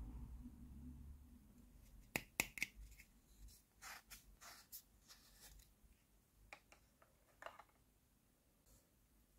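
Faint clicks, taps and rubbing of fingers handling plastic toy sausages, with a few sharp clicks about two seconds in and softer ticks after.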